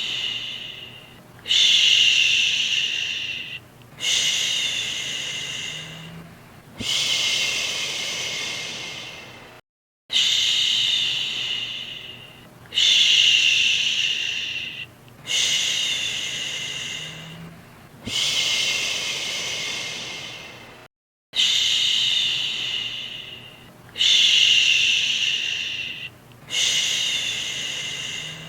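A woman's drawn-out whispered "shhh", repeated about every two and a half to three seconds. Each hush starts sharply and trails off. The same set of four shushes loops, with a brief silence between loops.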